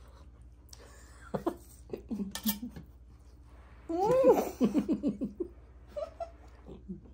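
Laughter: a burst about four seconds in that breaks into a quick run of ha-ha pulses, then a few softer chuckles.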